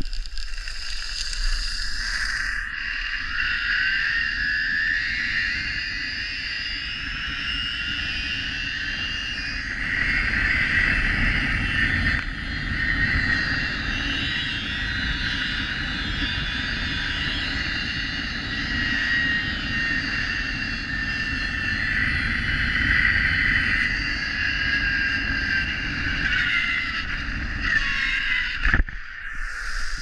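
Zip-line trolley pulleys running along a steel cable, a steady whine that rises in pitch over the first few seconds as the rider picks up speed and falls again near the end as it slows, over wind rushing on the head-mounted microphone. A sharp knock a little before the end as the trolley arrives at the platform.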